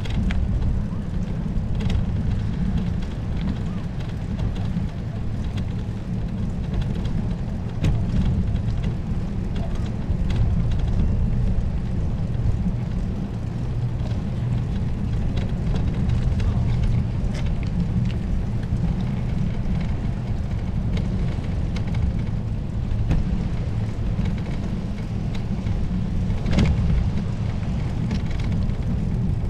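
Wind buffeting the microphone of a camera on a moving bicycle, a steady low rumble, with a few brief knocks and rattles, the most marked one near the end.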